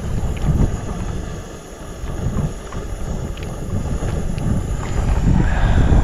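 Wind buffeting the microphone: a gusting low rumble, with a few faint light clicks.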